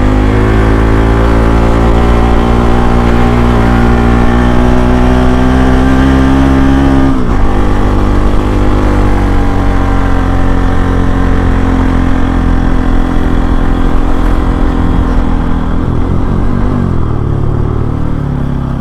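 Bajaj Pulsar NS200's single-cylinder engine under way. It pulls with a steady rise in pitch for about seven seconds, drops suddenly, then falls slowly as the bike slows, with another shift in pitch near the end.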